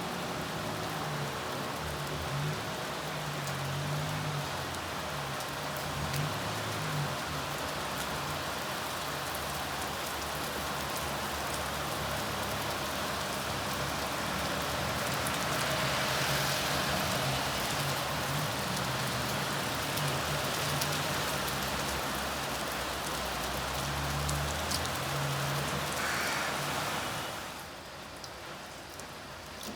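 Steady hiss of rain, with a low hum that comes and goes underneath; the sound drops in level and dulls near the end.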